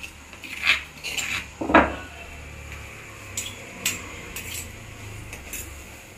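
A metal spoon scraping and knocking on a stone mortar and then clinking against a steel frying pan as pounded spice paste is tipped in and stirred into cooking tomatoes. A few sharp knocks come in the first two seconds, the loudest just before two seconds in, followed by lighter, scattered clinks of stirring.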